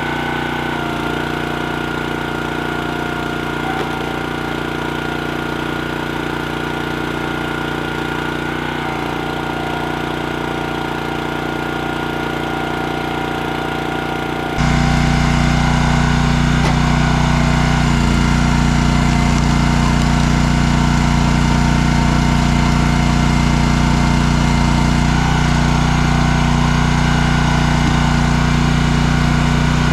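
Small gasoline engine of a log splitter running steadily, its pitch dipping slightly a few times. It gets suddenly louder about halfway through.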